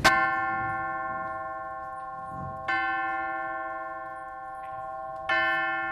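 A youth ensemble plays the same held chord three times, each entry starting together about two and a half seconds apart, then releases it together at the very end.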